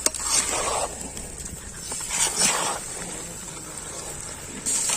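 Masala sizzling in a cooking pot, with a couple of rasping scrapes of a stirring ladle.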